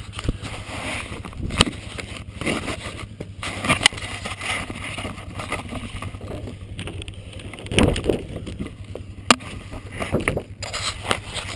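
Handling noise from a GoPro camera being moved about by hand: rustling and scraping against its housing and the wearer's clothing, with a few sharp knocks, over a low steady hum.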